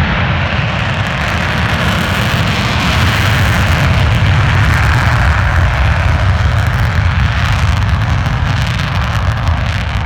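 Loud roar of F-35 fighter jet engines, with a deep rumble under a broad hiss. It swells to a peak around the middle and eases off slightly near the end.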